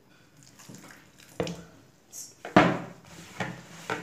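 Hands working flour and milk into dough in a plastic bowl: soft wet mixing with a few sudden knocks and clicks, the loudest about two and a half seconds in.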